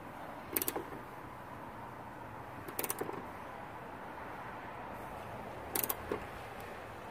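Hand ratchet clicking in three short runs of quick ticks as a socket tightens a spoiler mounting bolt.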